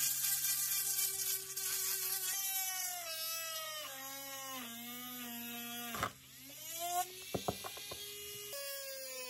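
Small electric power tool motor whining in a series of short runs, its pitch sagging and recovering as it is loaded. A quick run of sharp clicks about two thirds of the way through.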